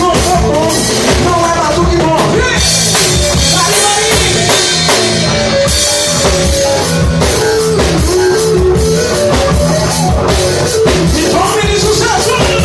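Rock-style band music: a drum kit keeps a steady beat under a gliding melody line.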